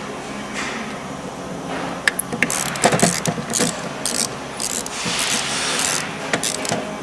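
Wrench ratcheting on the fan shaft bearing mounting bolts as they are brought up to torque: a few sharp clicks about two seconds in, then a run of short, repeated ratcheting strokes.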